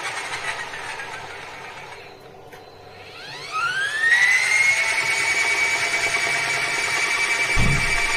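Mini washing machine's spin motor in its spin cycle: the whine falls in pitch and fades, then about three seconds in the drum spins back up with a rising whine that settles into a steady high-pitched whine. A low thump near the end.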